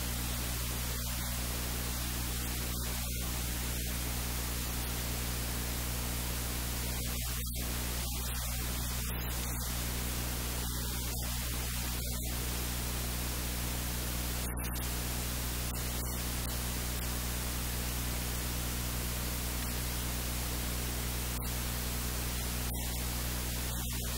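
Steady static hiss with a low electrical hum underneath.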